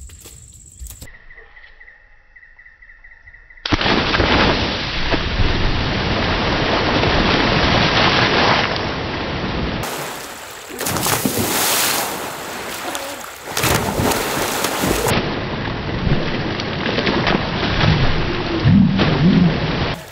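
People jumping into a pond and thrashing about in the water: loud, continuous splashing and churning water that starts suddenly about four seconds in, after a quieter opening.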